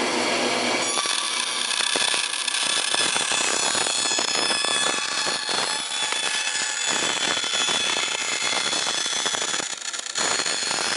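Bandsaw with a coarse skip-tooth blade cutting thin aluminum sheet: a steady rasping cut with high ringing tones over it, wavering as the piece is fed, with a brief dip about ten seconds in.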